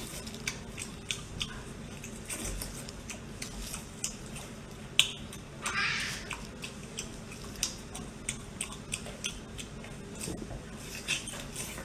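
Close-up wet eating sounds from biting into and handling sauce-covered octopus tentacles with plastic-gloved hands: scattered short sharp clicks and smacks, with a longer squelch about six seconds in.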